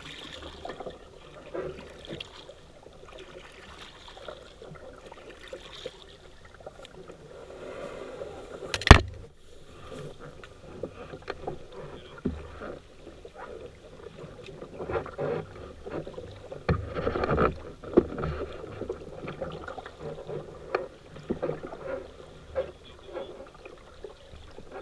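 Paddling a small boat on a river: paddle strokes splashing and dripping in the water, with irregular knocks against the hull. One sharp, loud knock comes about nine seconds in, and a louder stretch of splashing comes around seventeen seconds.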